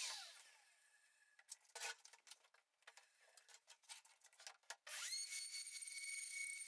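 Plunge router spinning down, then scattered light clicks and knocks as it is set up for the next pass. About five seconds in, the router starts again, its motor whine rising quickly to a steady high pitch as it mills a groove in the plywood tabletop.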